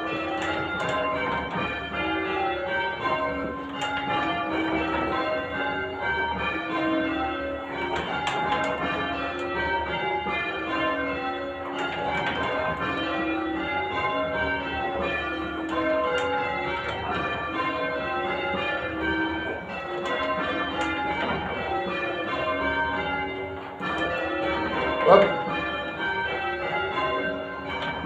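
Church bells rung full-circle in changes, a steady, even stream of overlapping bell strikes. A single brief, louder burst stands out near the end.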